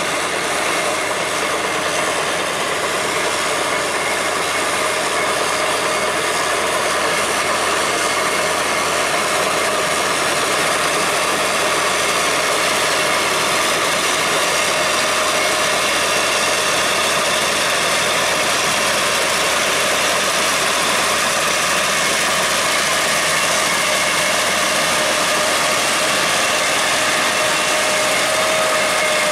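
Tracked tractor's engine running steadily, with a continuous mechanical drone and whine.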